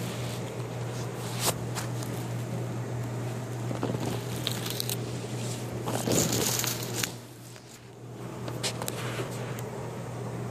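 Rustling and clicking handling noise from a handheld camera, loudest in a scrape about six seconds in, over a steady low hum.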